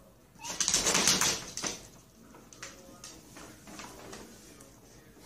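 A cat hissing at a dog: one loud hiss starting about half a second in and lasting about a second, followed by fainter, quieter sounds.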